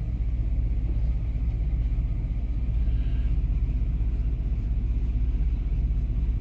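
1998 Chevy C1500 pickup's engine idling steadily, a low even running sound with no stumble. The owner says this engine misfires only at part-throttle cruise, not at idle.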